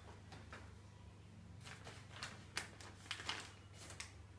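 Books and small objects being handled and set on a shelf: faint scattered taps, knocks and rustles, a few more in the second half, over a low steady hum.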